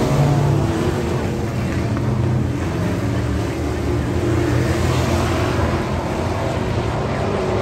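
Several pro-truck class dirt-track race trucks running together around the oval, a steady engine drone with small swells as the pack circles.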